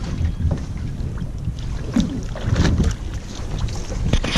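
Wind buffeting the microphone on a small boat, with water against the hull as a rope is hauled in over the side. A few sharp knocks of gear against the boat come near the end.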